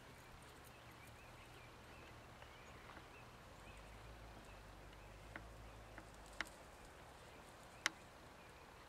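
Near silence: faint outdoor ambience with soft scattered chirps, broken by a few sharp clicks in the second half, the last and loudest near the end.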